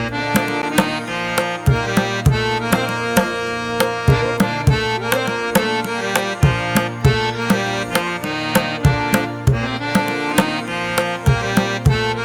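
Background music: a melody in held, pitched notes over a steady beat of hand-drum strokes.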